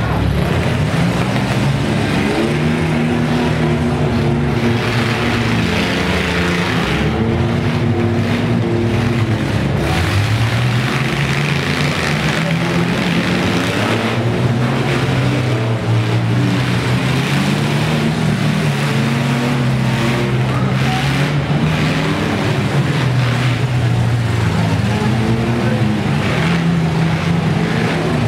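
Engines of several demolition-derby mini trucks and vans revving together, overlapping, their pitch rising and falling every couple of seconds.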